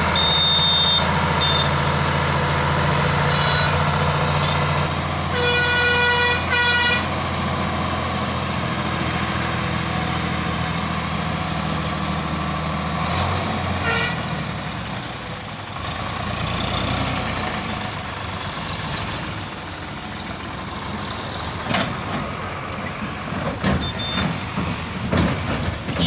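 Sonalika tractor diesel engine running steadily, with a horn honked twice, a long toot then a short one, about six seconds in. The engine note fades about halfway through, and a few sharp knocks come near the end.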